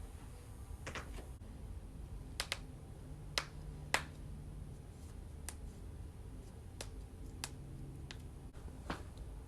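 Joints cracking during a chiropractic-style adjustment: about ten sharp, dry pops at irregular intervals, the two loudest near the middle.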